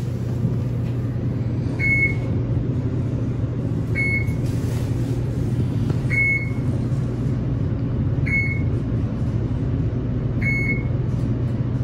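Fujitec traction elevator car descending: a steady low hum and rumble from the ride, with a short high beep about every two seconds, one for each floor passed.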